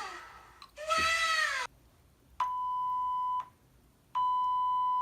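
Sound-effect clips played from an app: a recorded cat meows twice, its pitch rising and falling, and then come two long electronic beeps of about a second each on one steady tone, starting and stopping sharply.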